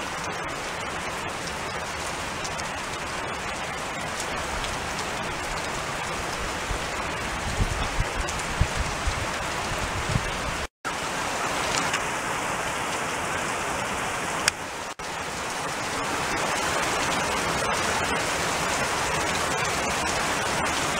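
Heavy rain falling steadily, a dense even hiss, with a few low thumps near the middle and a momentary dropout about eleven seconds in.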